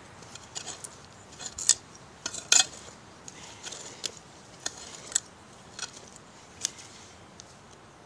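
A hand digging tool scraping and clinking in the soil of an old bottle dump, striking buried glass and debris in irregular sharp clinks, the loudest two about two seconds in.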